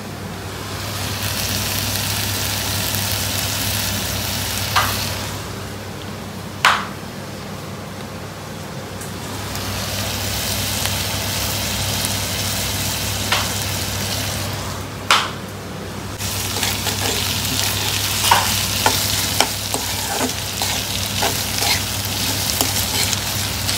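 Chopped onion, chillies and ginger sizzling in hot mustard oil in a pan, stirred with a spatula that clacks sharply against the pan a few times and taps and scrapes more busily in the last several seconds. A steady low hum runs underneath.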